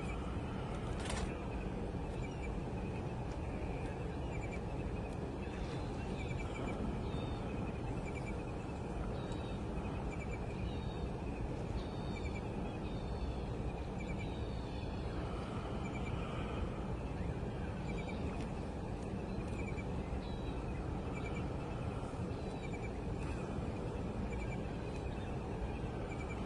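Small birds chirping in short, repeated calls every second or so over a steady low rumble of background noise.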